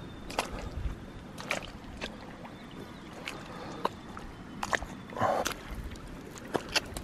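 Gumboot footsteps squelching through soft, wet tidal mud, with scattered sharp clicks and pops.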